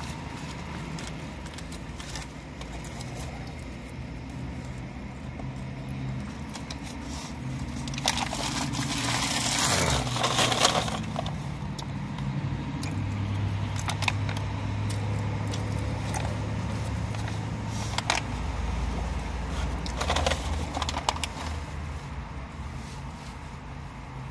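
A paper burger wrapper crinkling and rustling, loudest in a stretch near the middle, with scattered crackles and smacking as a fast-food burger is handled and bitten, over a low steady hum inside the car.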